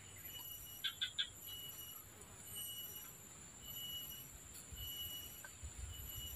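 Faint steady high-pitched insect chorus in swamp forest, with a short high call repeating about once a second and a quick burst of three chirps about a second in. Soft low thumps in the second half, from footsteps on a log walkway.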